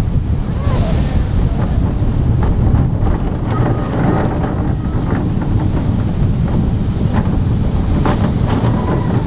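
Heavy wind buffeting the microphone and the rumble of an Intamin launched roller coaster train running fast along its steel track, a steady loud rush.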